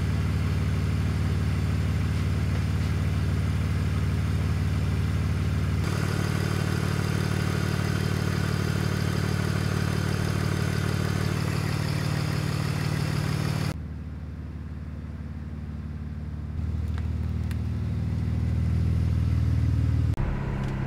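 BMW E46 325xi's M54 2.5-litre straight-six idling steadily with the cooling system being bled, its exhaust loud from a leak where the front pipe is not bolted to the header. In the last few seconds it is heard from outside the car, quieter at first, then louder as the car moves off.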